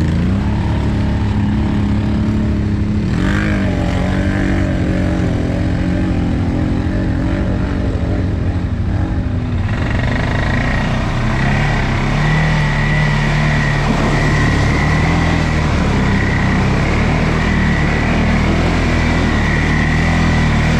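CFMoto CForce 625 ATV's single-cylinder engine running under way, its pitch rising and falling with the throttle. About ten seconds in the engine note climbs as it speeds up, with more hiss and a steady high whine on top.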